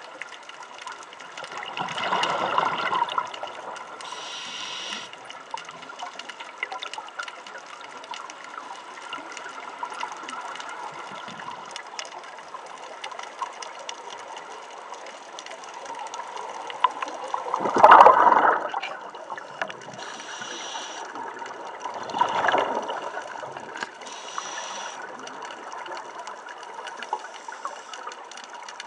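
Scuba breathing heard underwater: three gurgling bursts of exhaled bubbles from a regulator, the loudest about two-thirds of the way through, with short hisses of inhalation between them.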